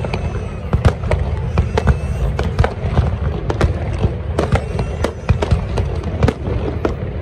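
Fireworks display: a rapid, irregular string of bangs and crackles, several a second, over a continuous low rumble.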